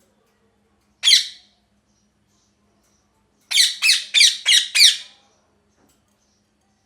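Ringneck parrot squawking: one sharp call about a second in, then a quick run of five calls a couple of seconds later, each falling in pitch.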